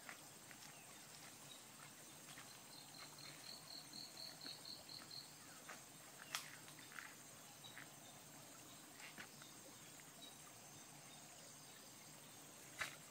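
Faint rural ambience: a steady high insect drone, with a bird calling a run of about a dozen quick even notes, about four a second, a few seconds in. A sharp click about six seconds in and another near the end.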